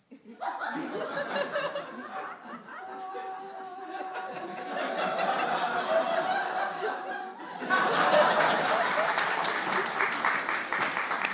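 Audience laughing hard at a punchline. About two-thirds of the way in, clapping breaks out and the sound gets louder, with the laughter going on underneath.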